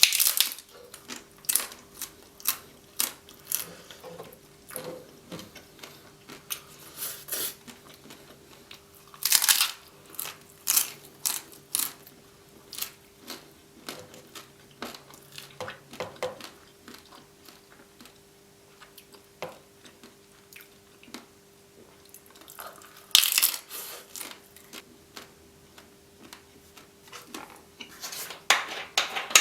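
Close-miked chewing and crunching of a hard taco shell with roast chicken: irregular sharp crunches throughout, with louder bites about nine seconds in and again about twenty-three seconds in.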